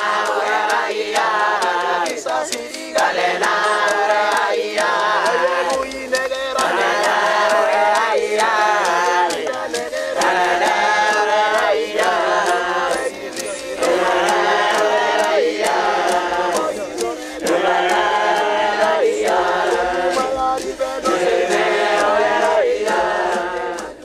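A large crowd of men chanting together in unison, in repeated sung phrases with short breaks between them.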